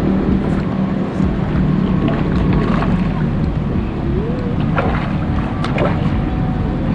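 Outdoor background noise: a steady low hum under a rushing noise, with a few faint clicks and a short wavering tone about four seconds in.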